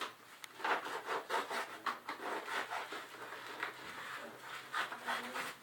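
Quick, repeated scraping and rustling of food packaging, cardboard and plastic rubbing against each other as groceries are shoved into a packed fridge.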